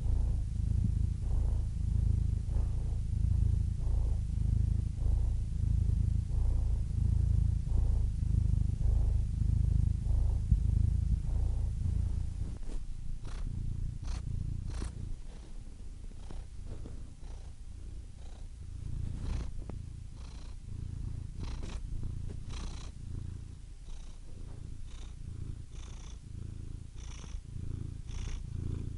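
Domestic cat purring continuously, a low rumble that swells and fades with each breath. It drops noticeably in loudness about twelve seconds in and carries on more softly.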